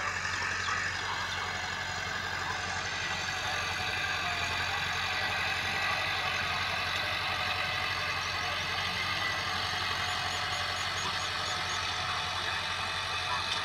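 Massey Ferguson 385 tractor's diesel engine running steadily under load as it pulls a cultivator through ploughed soil.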